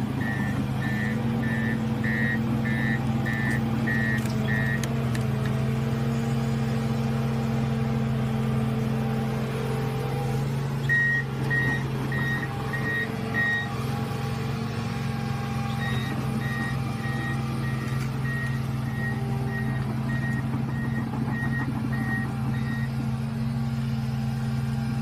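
Hitachi crawler excavator's diesel engine running steadily while its travel alarm beeps about twice a second, in runs that stop and start as the tracks move: a run ending about five seconds in, another around the middle, and a longer one near the end.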